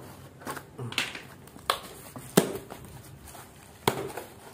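Cardboard mailer box being pulled open by hand: a handful of sharp cardboard snaps and knocks, the loudest about halfway through, with rustling of the flaps between.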